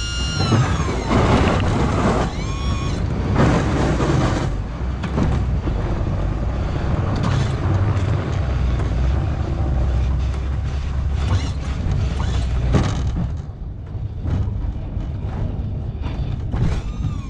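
A 16 ft Sno-Power pull plow is dragged in reverse: the blade scrapes snow along the pavement over the low rumble of the vehicle's engine, and the scraping thins out about 13 seconds in. A whining hydraulic motor, moving the plow wings, stops just at the start and starts again near the end.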